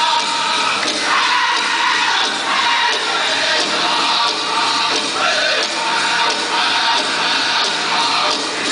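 Powwow drum group singing and drumming a chicken dance song, the singers' voices carrying over the drum.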